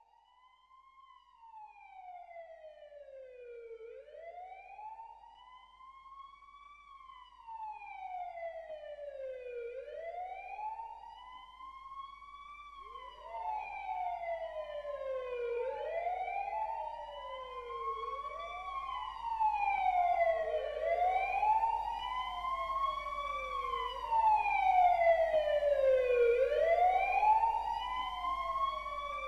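Police car sirens wailing in slow rises and falls, growing steadily louder as they approach. A second siren joins about halfway through, out of step with the first.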